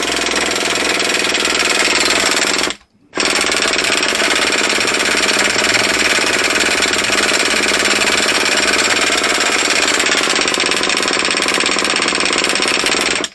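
Electric starter cranking a model nitro glow engine in a rapid, steady chatter: one short spin, a brief stop, then a long spin of about ten seconds that ends abruptly. The engine does not catch, which the owner puts down to the glow plug.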